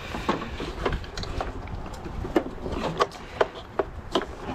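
Hand tools working on the metal engine shroud of a Briggs & Stratton Intek V-twin, a string of irregular sharp clicks and knocks as a tight fastener is worked loose.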